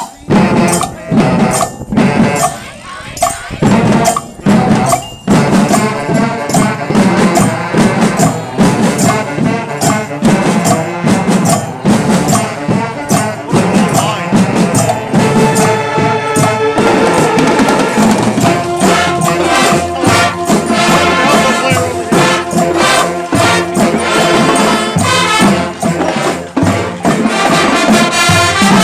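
A school band playing outdoors, with saxophones, brass and drums. A few separate drum strokes come first, then the full band plays over a steady percussion beat, with held notes from about halfway on.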